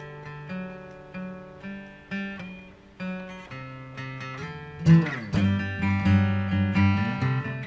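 Acoustic guitar playing an instrumental passage in a song with no singing: picked notes at first, then louder, fuller strumming from about five seconds in.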